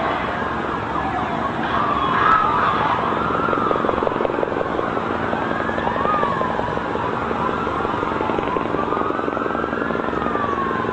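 Emergency vehicle sirens wailing, several overlapping, their pitch gliding up and down over a steady rumble of city noise.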